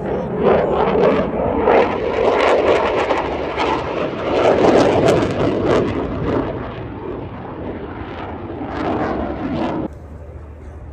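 Saab JAS 39 Gripen fighter's single jet engine heard as the jet flies its display: loud, rough jet noise with a ragged, crackling texture. It swells in about half a second in, stays loud, and cuts off suddenly near the end.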